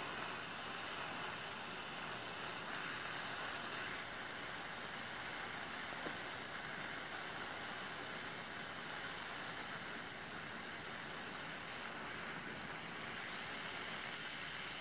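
Soldering torch flame hissing steadily.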